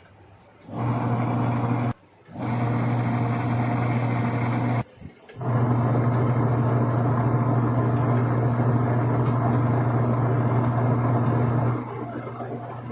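Washing machine motor running with a steady low hum, switched on and off: it starts about a second in, stops briefly twice, then runs steadily before dropping to a quieter level near the end.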